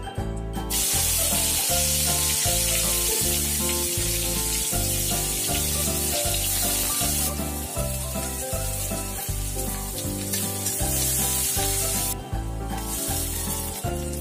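Sliced onions sizzling in hot mustard oil in an aluminium kadai. The sizzle starts suddenly about a second in as the onions hit the oil and drops away briefly near the end, over background music with a steady beat.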